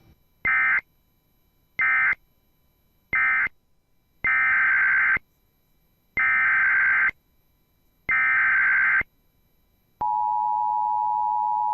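Emergency Alert System tones. First come three short SAME data bursts, the end-of-message code closing the previous alert. Then three longer SAME header bursts open the next alert, each about a second long with a second's gap. About ten seconds in, the steady two-tone EAS attention signal begins.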